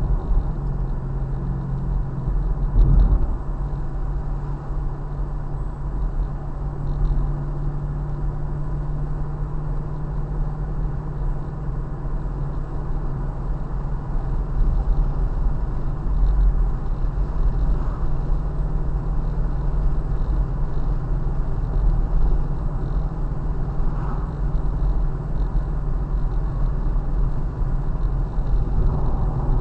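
Ford Mustang driving at a steady speed, heard from inside the cabin: a steady low engine drone with tyre and road rumble, and a brief thump about three seconds in.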